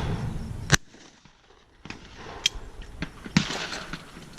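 Shotgun shooting clay targets: a sharp report just under a second in, then a quieter stretch with a few small clicks, and another sharp crack about three and a half seconds in.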